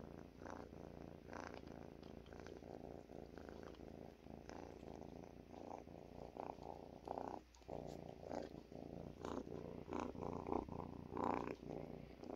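A tabby kitten purring steadily right against the microphone, with one brief pause a little past halfway.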